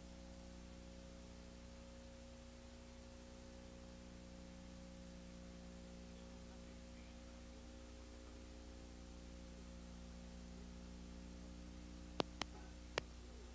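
Steady electrical hum and faint hiss of an old film soundtrack, with three sharp clicks in quick succession near the end.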